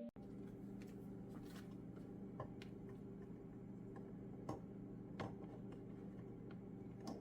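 Steady appliance-like hum in a kitchen, with a few light clicks and taps of things being handled during breakfast preparation.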